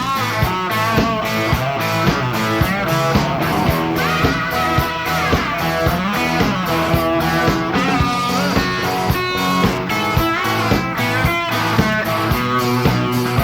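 Live rock band playing an instrumental break: electric guitar lead with bent notes over bass and a steady drum beat.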